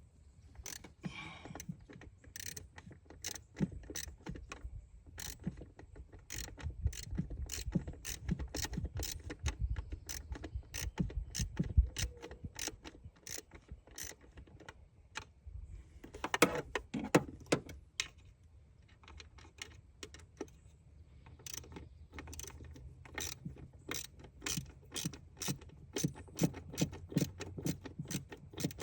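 Hand ratchet clicking in short runs, with small metal tool taps and rattles, as fasteners are worked by hand.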